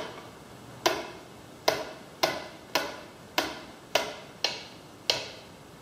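Sharp clicks, about nine, unevenly spaced, as a Sigma manual mosaic cutter scores and snaps a row of glass mosaic tiles.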